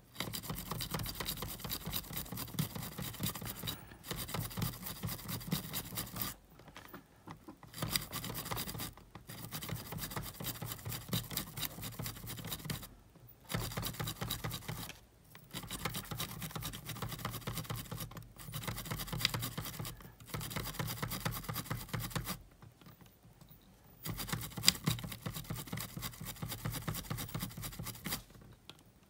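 Foam cleaning swab scrubbing rapidly against the mechanism parts of an opened Sony cassette Walkman, a fast scratchy rubbing. It comes in runs of a few seconds, broken by short pauses.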